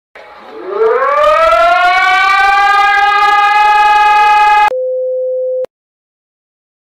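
Siren winding up from a low pitch to a steady high wail over about a second, holding it, then cutting off abruptly. A plain steady beep tone follows for about a second.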